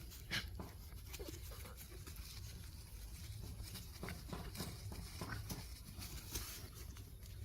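Dogs playing, making scattered light scuffles and taps, with one sharper tap about half a second in.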